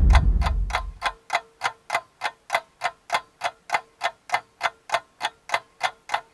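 Quick, even ticking sound effect like a clock or timer, about three ticks a second, with a faint steady tone beneath. The tail of the music before it fades out in the first second.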